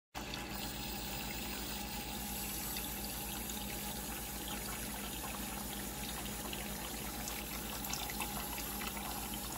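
Tap water running steadily into a basin of whole pompano fish being washed, starting abruptly just after the start.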